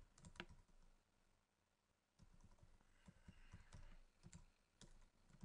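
Faint keystrokes on a computer keyboard: a few keys, a pause of about a second, then a steady run of typing.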